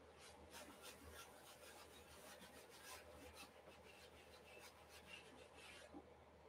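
Sponge scrubbing and dabbing acrylic paint onto a stretched canvas in quick, faint strokes, several a second, which stop about six seconds in.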